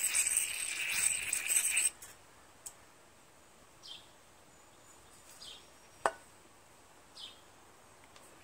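Aerosol carburetor cleaner spraying through its thin straw into a small-engine carburetor's jets while the rest of the can is emptied: a loud steady hiss that cuts off sharply about two seconds in. After that come faint short chirps and a couple of small clicks.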